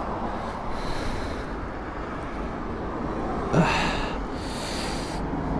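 Steady rumble and hiss of road traffic passing on a nearby highway, with a brief louder swell about three and a half seconds in.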